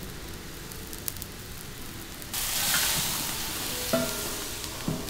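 Pork ribs blanching in a large iron wok of boiling water: a steady bubbling boil, then from about two seconds in a louder hissing boil as a metal spatula stirs the ribs, knocking twice against the wok near the end.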